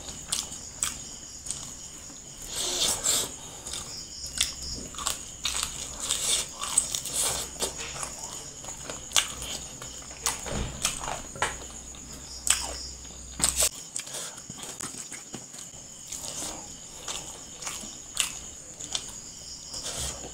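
Close-up mukbang eating sounds: wet chewing, lip smacks and mouth clicks as handfuls of rice and chicken curry are eaten by hand, in irregular bursts. A faint steady high-pitched tone runs underneath, and a low hum cuts off about two-thirds of the way through.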